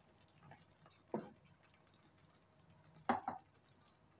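Quiet kitchen handling: a wooden spoon and pan give a single soft knock about a second in and a quick pair of clicks around three seconds in.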